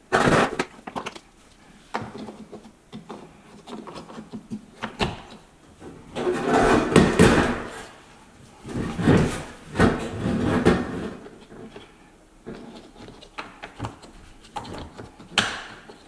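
Sheet-metal dishwasher panels being worked back into place: irregular rattling, scraping and knocks as the pieces are pushed together and clipped, with the longest, loudest scraping about six and nine seconds in.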